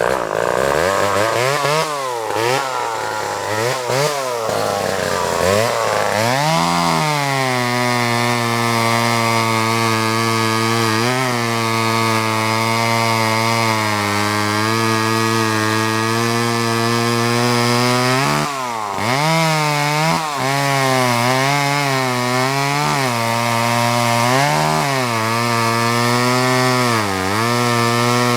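A vintage Homelite XL2 two-stroke chainsaw running. For the first six seconds or so its speed rises and falls unevenly, then it settles into a steady idle, with a few brief dips in engine speed that recover at once.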